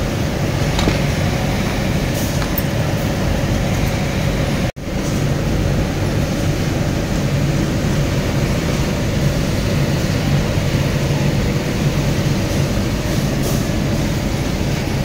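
Steady mechanical hum of industrial sewing machinery running, cutting out for an instant about five seconds in.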